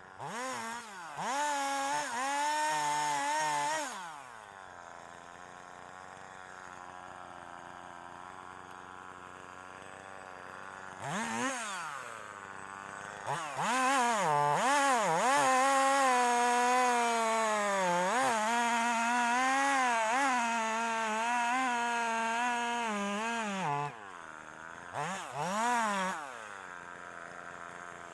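Husqvarna 340e two-stroke chainsaw alternating between idle and full throttle. It revs briefly, idles for several seconds, and after a few blips runs at high speed for about ten seconds with its pitch sagging and recovering as it bites into wood. Then it drops back to idle with more short blips.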